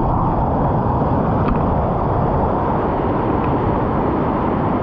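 Whitewater of a river rapid rushing steadily and loudly.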